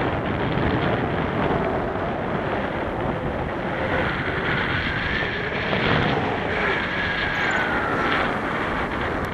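Wind rushing over the camera microphone during paraglider flight, a steady, even roar. A faint wavering whistle rises over it from about four seconds in.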